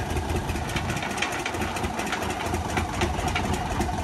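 Diesel engine of a 1962 Plymouth switcher locomotive running steadily just after its first start, with repeated sharp ticks over the engine note.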